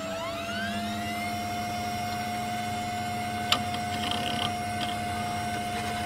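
A motor-like whine that rises in pitch over the first second and then holds steady over a low hum, with one sharp click about three and a half seconds in.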